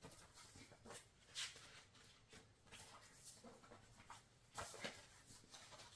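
Near silence with faint, scattered rustles and light taps of album packaging and photo cards being handled, clearest about a second and a half in and again near five seconds in.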